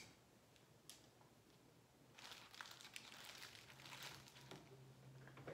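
Faint rustling and crinkling of plastic items being handled and moved on a table, with a light tap about a second in.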